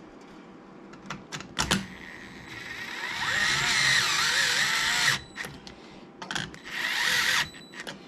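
Small power driver whirring in two bursts, a longer one of about two and a half seconds and a short one near the end, as screws are driven into the drop target assembly, after a few handling clicks.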